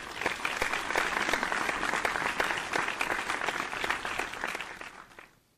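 Audience applause: many hands clapping, coming in quickly and fading out near the end.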